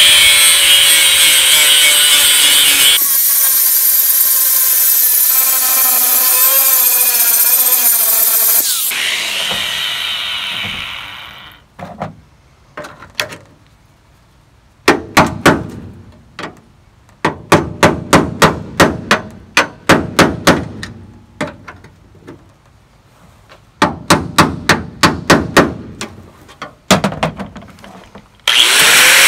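Angle grinder with a thin cutoff wheel cutting through a steel pickup-bed bolt head, then spinning down about ten seconds in. Next come bursts of sharp metal knocks, several a second, as the cut bolt head is broken out with a screwdriver. The grinder starts up again near the end.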